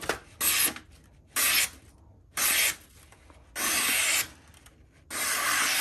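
A freshly sharpened knife with a 1000-grit edge slicing into a sheet of paper in five short rasping cuts, the last two longer. The edge bites in with no effort, a sign that it is extremely sharp.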